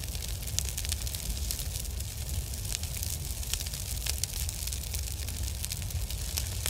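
Fire-crackling sound effect: many scattered sharp crackles over a low, steady noise.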